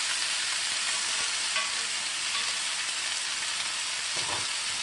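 Chuck roast with onions and peppers sizzling in a hot braiser: a steady frying hiss. A soft knock comes near the end.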